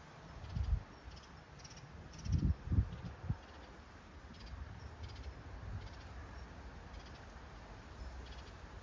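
Insects chirping outdoors at dusk in a repeating series of short high pulses. There are a few low thumps about half a second in and again between two and a half and three seconds, then a faint low rumble.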